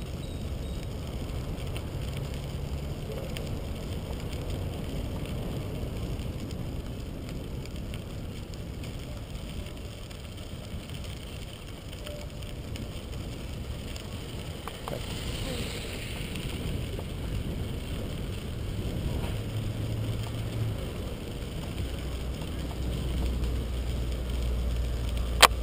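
Steady low rumble of bicycle tyres rolling over a crushed-stone trail, mixed with wind noise on the microphone; a sharp click near the end.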